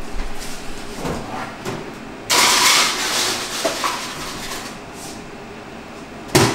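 Refrigerator ice dispenser running, its motor grinding out crushed ice with a sudden loud rush about two seconds in that lasts about a second and then trails off. A sharp knock comes near the end.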